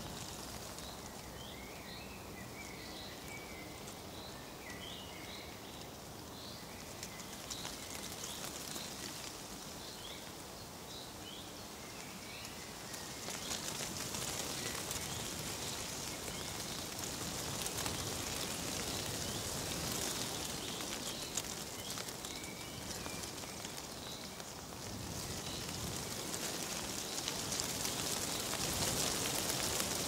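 Nature ambience: a steady, crackly hiss of rustling leaves, with birds chirping over it for the first dozen seconds and again briefly later. The rustling grows louder about halfway through.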